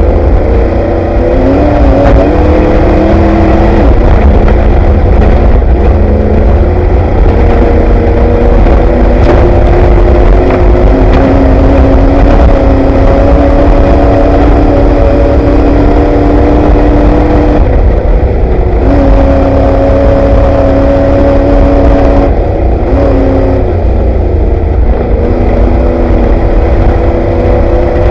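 Ford Bronco desert race truck's engine running hard under load, heard from inside the cab over a heavy, constant low rumble from the rough ground. The engine note holds steady in stretches and changes pitch in steps, dropping briefly about two-thirds of the way in and again a few seconds later before picking back up.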